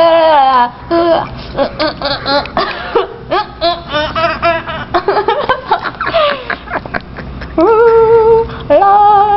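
A person's voice making odd noises: a wavering, warbling held tone that breaks off under a second in, then a run of short, choppy yelps and giggle-like sounds, then two long steady held notes near the end.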